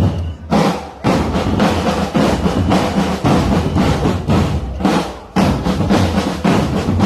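Drum section of a marching military drum band playing a fast drum cadence on marching snare and bass drums, played close by, with brief breaks in the pattern about half a second in and about five seconds in.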